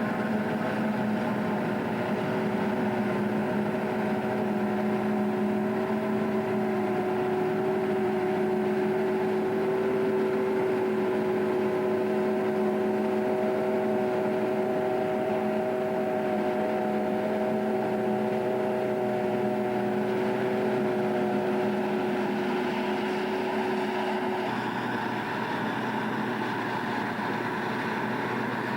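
John Deere self-propelled forage harvester running steadily while chopping maize, with a held whine over the engine and crop noise. The whine drops away about 24 seconds in.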